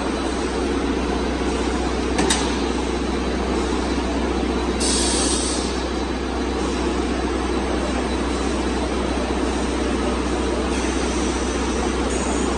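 Steady running noise of a fibre-cement corrugated roofing sheet production line, with a low hum under it. A sharp click comes about two seconds in and a short hiss about five seconds in.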